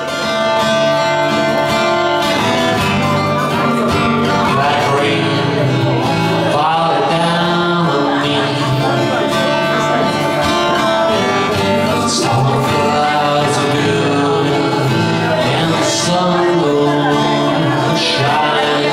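Acoustic guitar played live, a steady run of chords as the song's instrumental opening.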